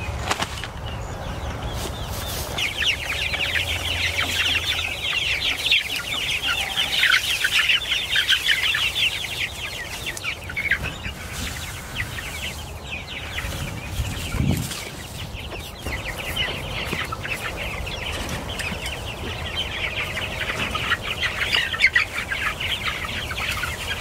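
A flock of young white meat chickens, about five weeks old, peeping and clucking in many overlapping short high calls. The calls come in two long spells, with a lull in the middle and a single low thump there.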